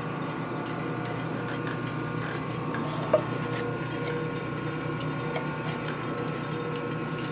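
Electric honing machine running steadily with its abrasive stone working a metal engine part, with small ticks throughout and one sharp click about three seconds in.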